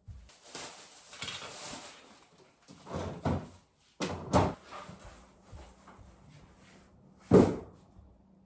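Household handling noises: a short rustle, then a few knocks, and one loud thump near the end.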